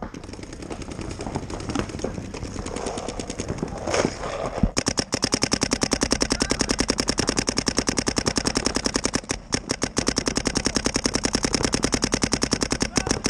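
Paintball markers firing in rapid, evenly spaced streams of shots. A fainter stream runs through the first few seconds, then a louder, continuous stream starts about five seconds in, with a brief break about two-thirds of the way through.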